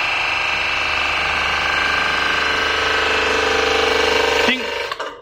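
Hydraulic pump unit running steadily under load as it pressurises the cylinder under test, the gauge pressure climbing. About four and a half seconds in the pump cuts off and dies away within about half a second.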